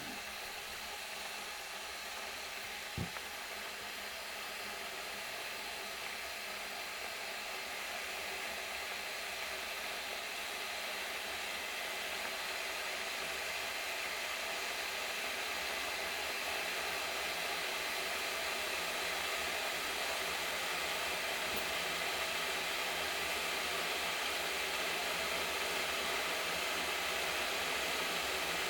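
Tefal Thermovision KI410D30 electric kettle heating water: a steady hiss that slowly grows louder as the water heats toward the boil, with a brief knock about three seconds in.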